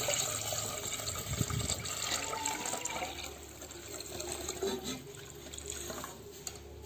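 Young coconut water poured from a metal pot into a pot of sugar syrup, splashing and trickling; the pour is loudest at first and eases off after about three seconds.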